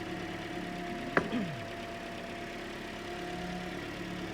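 Toyota Corolla's 1ZR-FE four-cylinder engine idling steadily, running again after its blown EFI No. 1 fuse was replaced. A single sharp click about a second in.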